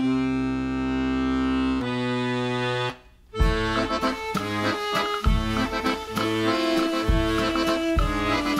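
Instrumental music: accordion holding chords, then after a brief drop about three seconds in, the band picks up with a steady thumping beat.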